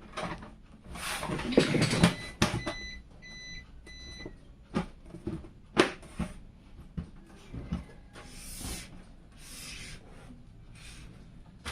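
Clicks, knocks and rustling from hardware being handled, with three short electronic beeps about three seconds in.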